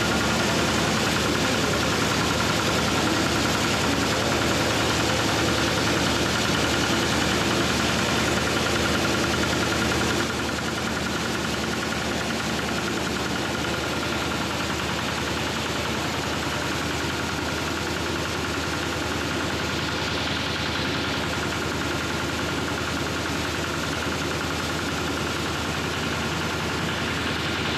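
Small stationary engine running steadily, driving a coffee-processing machine as dried coffee beans are fed into its hopper. Its level drops slightly about ten seconds in, then runs on evenly.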